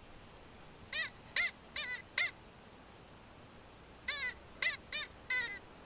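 Arctic hare calls: two runs of about four short cries each, every cry rising and falling in pitch, over a faint steady hiss.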